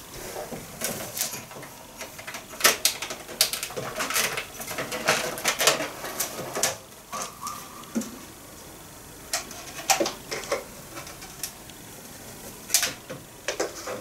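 Scattered plastic clicks, knocks and rattles as the dust container and filter are unlatched and pulled out of a Kitfort KT-581 stick vacuum, with the motor off.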